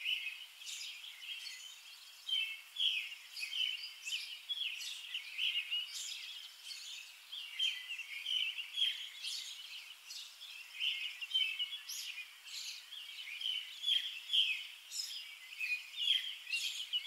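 Birds chirping: many short, high chirps overlapping in a continuous run.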